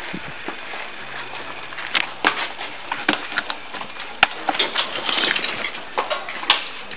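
Footsteps on a hard floor with scattered sharp clicks and knocks, irregular and several a second, busiest in the second half.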